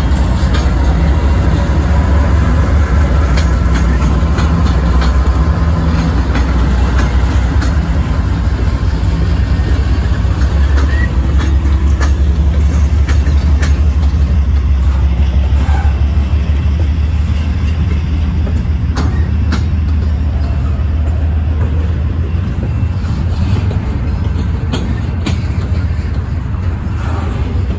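Freight train passing close by. A diesel locomotive's engine drones for the first several seconds, then double-stack container well cars roll past with a steady low wheel rumble and scattered sharp clacks of wheels over the rail joints.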